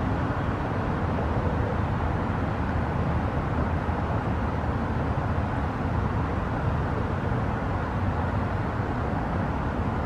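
Steady low rushing outdoor background noise with no distinct events.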